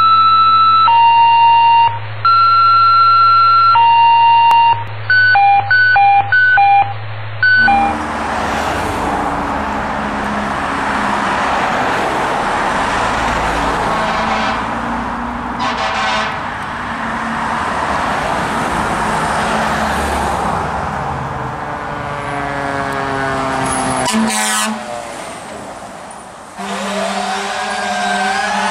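Fire engine responding under emergency warning devices. Its electronic siren steps back and forth between two tones about once a second, then alternates faster. From about 8 s in, the truck's loud engine and road noise take over as it passes, and near the end a siren rises and falls in pitch again.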